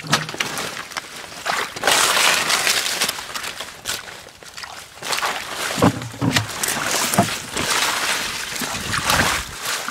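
Hands sloshing and splashing in shallow muddy water and pulling through grass and lotus leaves, in irregular bursts of splashing and rustling.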